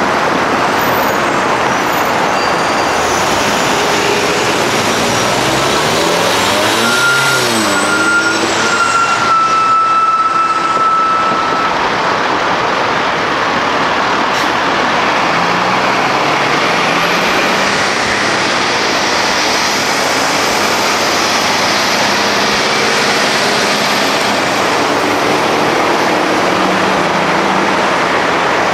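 Road traffic driving over a railroad crossing: cars and a school bus passing with engines accelerating and tyres on the pavement. A high steady squeal lasts a few seconds about a third of the way in.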